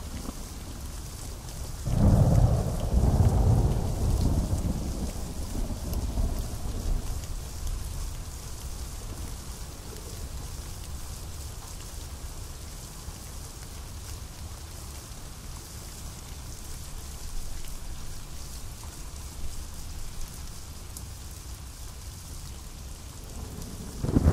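Steady pouring rain with thunder: a loud thunderclap about two seconds in that rumbles away over several seconds, and another peal starting right at the end.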